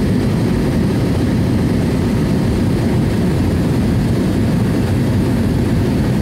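Steady cabin drone of a Cessna 208 Caravan's single PT6A turboprop engine and propeller, mostly a low rumble that holds level throughout, on the approach to landing.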